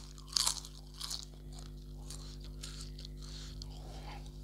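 Close-miked chewing and mouth sounds of a man eating a mouthful of rice and mutton curry by hand, with a few sharp crunchy bites in the first second, then softer chewing.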